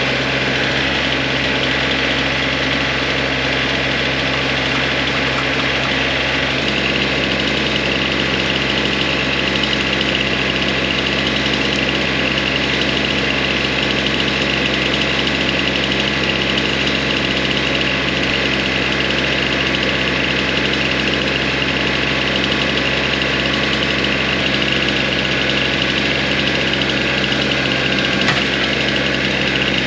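Compact diesel tractor engine running steadily at a constant speed.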